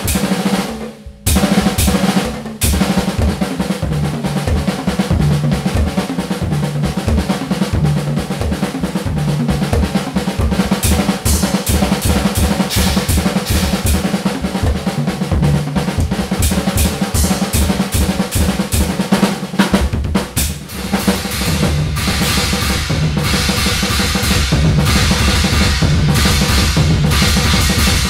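Acoustic drum kit with Meinl cymbals played fast in a metal style: bass drum, snare and cymbal crashes, with a short break about a second in. From about twenty seconds in the bass drum runs in a continuous rapid stream under the cymbals.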